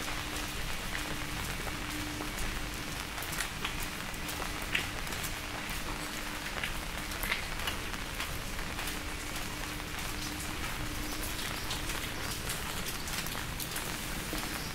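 Steady rain falling, with scattered louder drops ticking close by.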